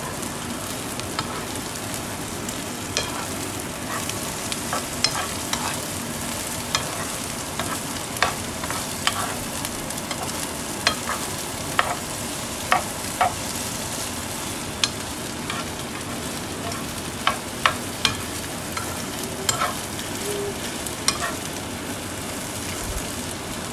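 Bitter melon and egg sizzling steadily in a frying pan while a metal spoon stirs them, with irregular clinks and scrapes of the spoon against the pan.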